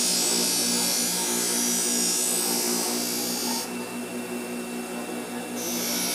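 Bench grinder running with a steady motor hum while a machete blade is sharpened on its wheel. A high grinding hiss is heard while the steel is held to the wheel. It stops about three and a half seconds in as the blade is lifted away and starts again near the end.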